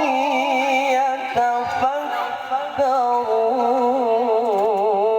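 A single voice reciting the Quran in a slow melodic tilawah style. It holds and ornaments long notes with a wavering, trilled pitch, with a couple of short breaks for breath.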